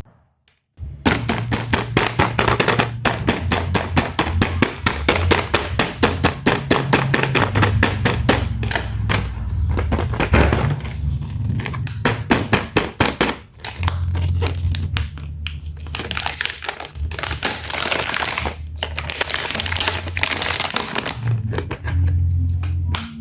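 Plastic toy packaging being handled and unwrapped, with a dense run of crinkling and crackling broken by a few short pauses. A low steady hum sits underneath.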